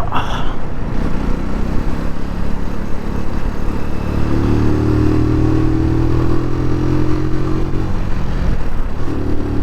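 Keeway Superlight 125cc motorcycle engine running under way over a steady rush of noise. Between about four and eight seconds in, its pitch rises slowly as the bike accelerates, then falls back.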